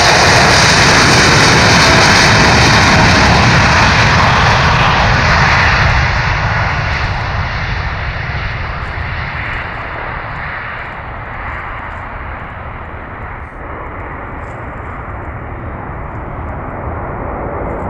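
Boeing 787-8 Dreamliner's jet engines at takeoff thrust as the airliner rolls past, lifts off and climbs away. The noise is loudest for the first six seconds, then fades and turns duller as the high end drops away with distance, settling into a lower rumble.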